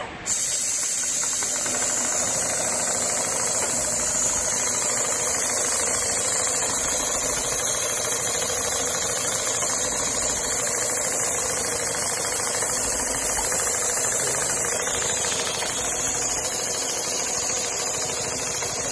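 Computer-controlled (CNC) pattern sewing machine running steadily, its needle stitching a pattern into leather with a continuous mechanical hum and rapid needle chatter.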